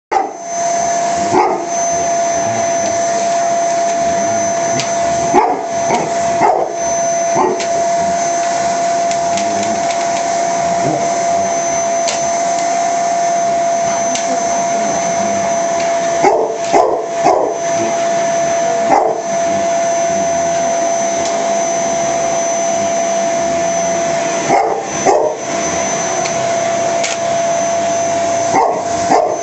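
Vacuum cleaner running with a steady whine, while a dog barks in short runs of several barks, about five times over the stretch.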